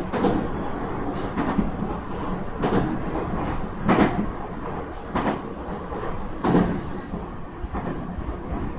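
Nankai 2300 series electric train running, heard from inside the car: a steady rumble of wheels on rail with a sharp clack from the rail joints about every second and a quarter.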